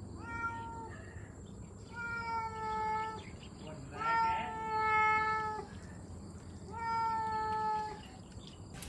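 Domestic cats meowing: four drawn-out meows, each held at a steady pitch, the longest about a second and a half.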